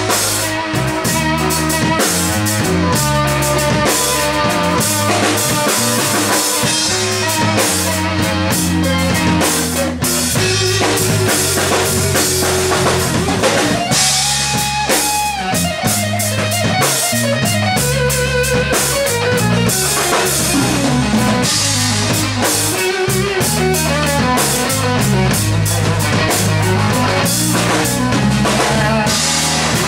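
Live band playing: electric guitar, electric bass and drum kit, with a lead line gliding in pitch around the middle.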